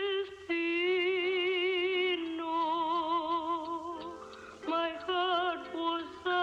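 Music: a female voice sings long wordless notes with a wide vibrato, over soft accompaniment.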